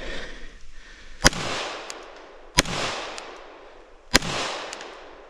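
Three slow, aimed pistol shots about a second and a half apart, each rolling away in a long echo.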